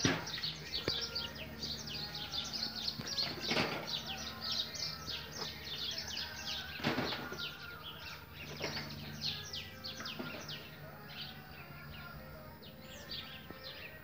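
Many small birds chirping, a rapid run of short falling notes that thins out near the end, with a few dull thumps in between.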